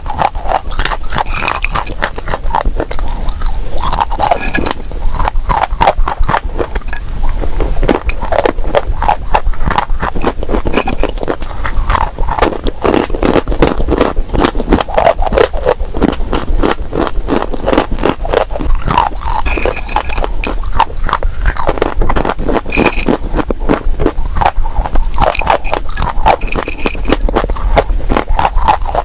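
Dry clay being crunched: a continuous, dense run of crisp cracks and gritty scraping.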